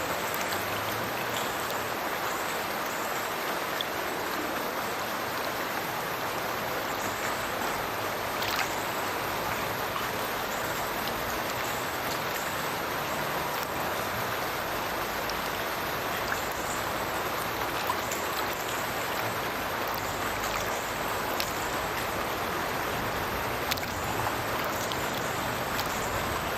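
A burn pouring out of a culvert and falling into a river below: a steady rush of splashing water, with a few brief, sharper splashes scattered through it.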